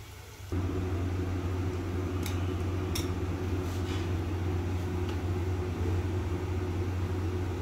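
Steady low electric hum, as from a running motor, that starts abruptly about half a second in, with a few light clicks over it.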